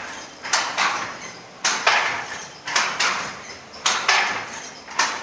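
Wooden handloom being worked by a weaver: a steady rhythm of sharp wooden clacks in pairs, about once a second, as the shuttle is thrown and the beater is struck against the cloth.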